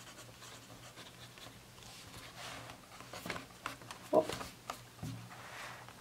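Graphite pencil scratching as a word is written on sketchbook paper, then handling of the sketchbook, with rustling, several sharp clicks, a short loud squeak about four seconds in and a dull thump about a second later.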